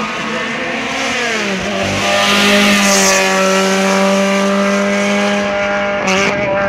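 Race car's engine at full throttle on a hill climb, its note dropping in pitch as it passes close by, then holding steady as it pulls away up the road, with a brief break in the note near the end.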